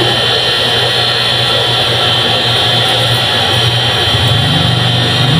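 Steady loud mechanical roar with a low hum underneath, growing a little louder near the end.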